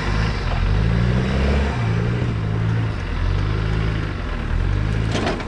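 Land Rover Defender's engine working at low revs as the 4x4 crawls over rough ground, the revs rising and falling repeatedly. A short sharp knock comes near the end.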